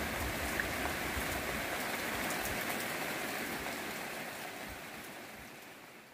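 Heavy rain falling steadily, an even hiss of rain on surfaces, fading away over the last two seconds.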